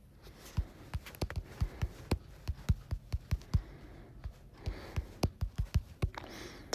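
Fingers tapping on a phone held close, a rapid irregular series of short taps, as when typing a search on the touchscreen.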